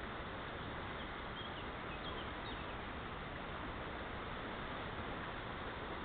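Steady rush of a fast, shallow river's current flowing over stones, with a few brief high chirps about two seconds in.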